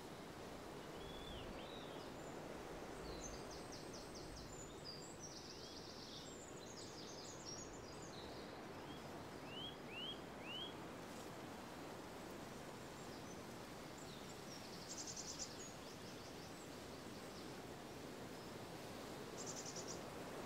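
Outdoor ambience: a faint, steady background hush with small birds calling over it. There are short downward-sweeping chirps, three in quick succession about ten seconds in, and rapid high trills several times.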